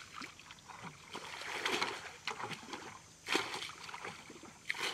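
Irregular splashing and sloshing in shallow muddy water as people wade through it and scoop with their hands, with louder splashes about a second and a half in and again past three seconds.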